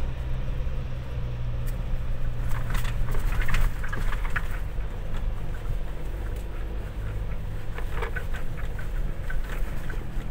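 Ford Ranger FX4 Max pickup driving over a rough gravel road: a steady low rumble of engine and road, with bursts of crackling and rattling about two and a half seconds in and again near eight seconds.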